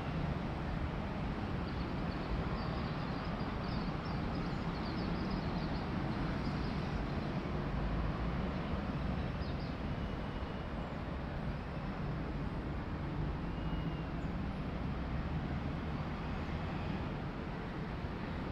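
Steady city road traffic, a continuous low rumble of vehicles, with faint short high chirps in the first few seconds.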